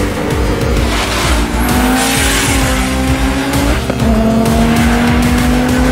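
Car engine running hard with tyres squealing, mixed with background music; a few long squeal-like tones rise slowly in pitch.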